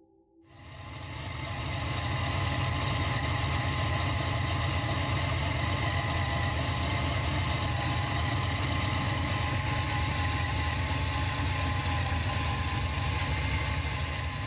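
A car engine idling steadily with a deep, even rumble. It fades in over the first couple of seconds.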